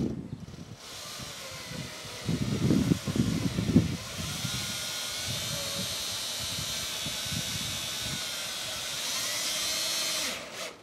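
Cordless drill running steadily with a faint whine as it bores a half-inch hole through the side of a plastic garden sprayer tank, with some low knocking about two to four seconds in, then stopping near the end.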